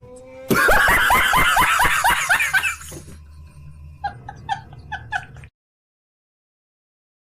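Laughter sound effect: a loud burst of rapid laughs, each one falling in pitch, then a few softer chuckles that cut off suddenly about five and a half seconds in.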